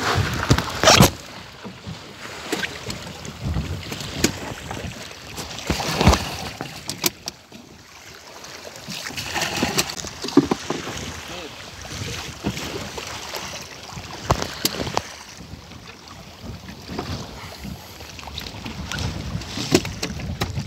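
Wind buffeting the microphone and sea washing against a wooden sailing raft, swelling and easing, with scattered sharp knocks, the loudest about a second in and around six seconds in.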